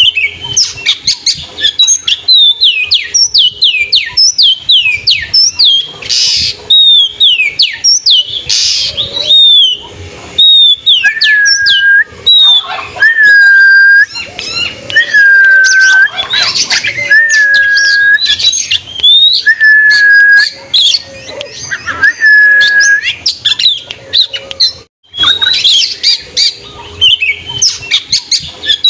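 Oriental magpie-robin (kacer) singing. It opens with quick runs of sharp, falling whistles, then through the middle gives long whistles held on one pitch, repeated every couple of seconds. Near the end it breaks off briefly and resumes the fast falling phrases.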